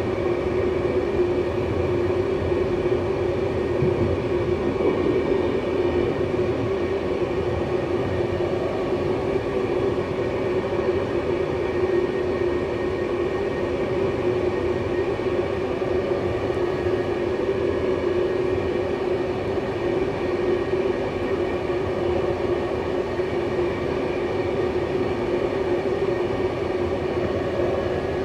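Intercity passenger train running along the line, heard from inside its last carriage: a steady rolling rumble of wheels on rails with a steady drone.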